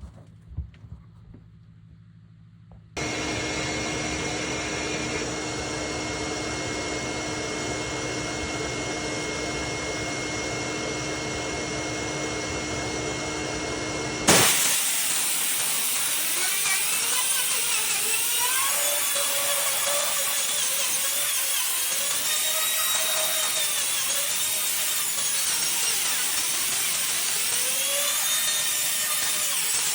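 A power tool's motor runs steadily for about eleven seconds while a dryer vent is cleaned. About halfway through the sound switches abruptly to a louder rushing hiss with repeated swishing sweeps.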